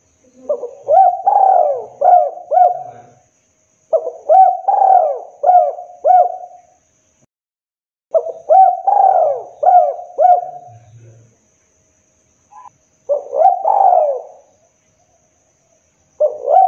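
Spotted dove cooing: five phrases of a few throaty, repeated coo notes each, about every three to four seconds, the fourth phrase shorter and the last still going at the end.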